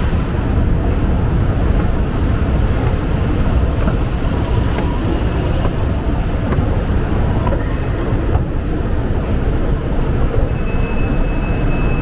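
Steady, loud low rumble of subway station noise, of the kind a running train makes, with a few faint short tones over it.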